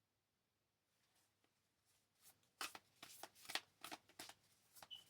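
Tarot cards being shuffled and handled: near silence, then from about two and a half seconds in a quick, irregular run of papery flicks and clicks.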